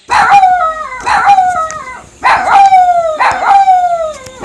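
A dog barking four times, about a second apart, each bark drawn out into a long cry that falls in pitch.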